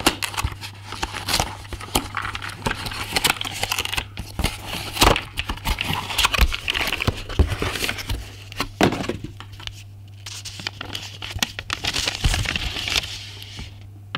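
Cardboard box and paper packaging rustling and crinkling as they are handled and pulled open by hand, with scattered sharp clicks and knocks; it dies down near the end.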